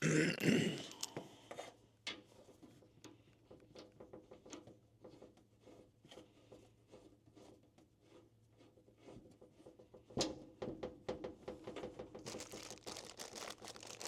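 Crinkling, rubbing and small clicks of yellow gas-rated Teflon thread tape being wrapped onto a propane fitting. There is a louder burst right at the start, and the handling gets busier about ten seconds in and again near the end.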